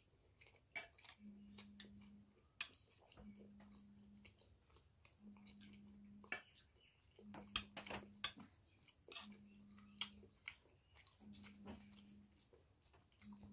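Faint, close chewing and mouth clicks of someone eating luchi with ghugni, with a faint low hum that comes and goes about every two seconds.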